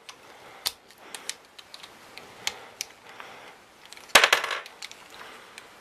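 Plastic pieces of a V-Cube 3x3 puzzle cube clicking and clattering as they are fitted into the partly rebuilt cube by hand, with scattered single clicks and a louder flurry of clicks about four seconds in.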